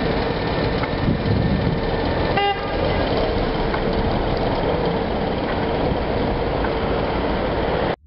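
Steady street traffic and engine noise, with one short car horn toot about two and a half seconds in.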